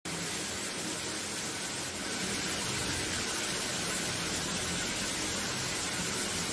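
Shower running: a steady hiss of water spray.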